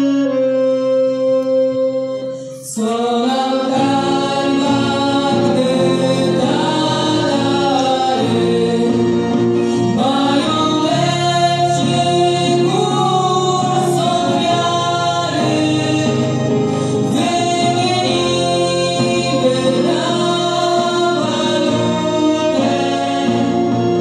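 A mixed group of men and women singing together, with accordion, acoustic guitar and a brass horn playing along. A held chord breaks off about two and a half seconds in, and after a brief pause the voices and instruments start a new phrase.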